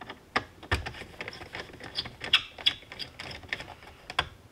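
Screwdriver turning out a Phillips-head screw from the plastic lower dash console, giving a string of irregular sharp clicks, a few a second.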